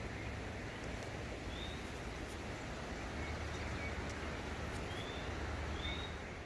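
Steady outdoor background noise with a low rumble, with a few short, faint, high bird chirps scattered through it.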